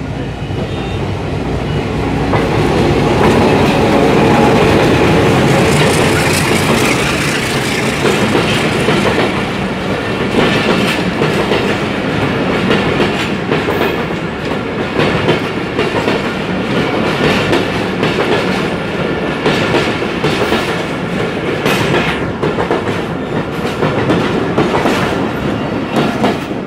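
An ALCO-built WDM-3A diesel locomotive running past at close range, loudest a few seconds in. It is followed by a long rake of Iranian-built passenger coaches rolling by, their wheels giving a steady clickety-clack over the rail joints.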